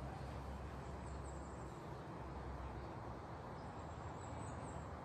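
Faint garden ambience: a steady low rumble and hiss, with a few faint high bird chirps about a second in and again near the end.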